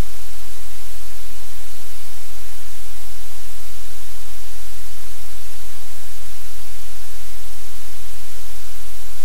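Loud, steady hiss like static, even and unchanging, with no distinct sounds standing out of it.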